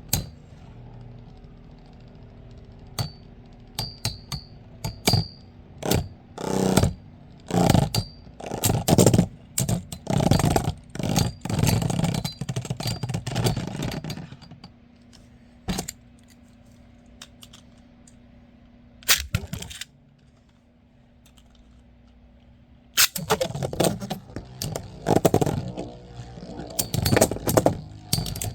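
Beyblade spinning tops clattering and striking each other in a plastic stadium: rapid clicks, knocks and scrapes in two dense bursts with a quieter stretch between them.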